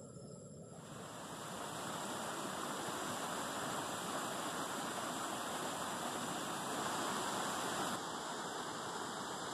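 Mountain stream rushing over rocks in a stretch of rapids: a steady rush of water that fades in over the first two seconds and then holds.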